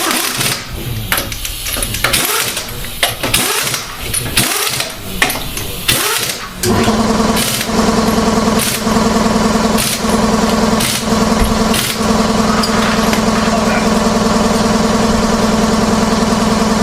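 Irregular knocks and clatter, then about seven seconds in a car engine starts and settles into a steady idle.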